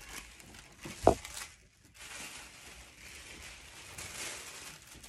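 Tissue-paper sewing pattern pieces rustling and crinkling as they are handled and folded by hand, with one short sharp thump about a second in.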